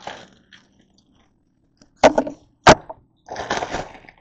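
Plastic grape bag rustling and crinkling as it is handled, with two sharp knocks about two seconds in, just over half a second apart, and a longer crinkle near the end.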